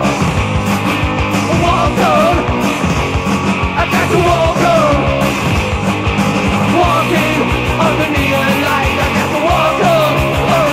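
Punk rock recording: a loud full band playing steadily, with a melody line that slides up and down.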